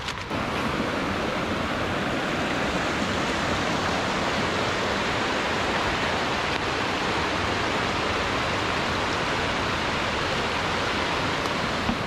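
Steady rushing of a creek's small waterfall and cascade: a constant, even hiss of falling water.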